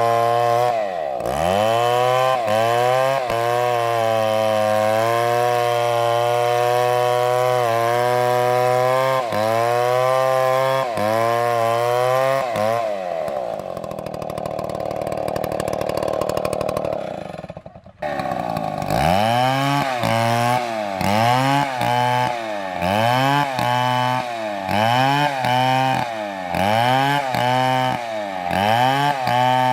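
STIHL chainsaw's two-stroke engine running at high revs, its pitch dipping briefly now and then, then sagging away. After a sudden break about 18 seconds in, it is revved in short bursts about once a second.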